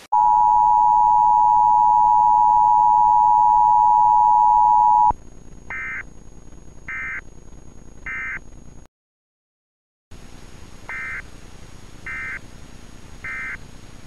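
Emergency Alert System attention signal: a loud, steady two-tone drone held for about five seconds that cuts off abruptly. Then come three short, higher beeps about a second apart over a hiss, and after a brief dropout, three more beeps.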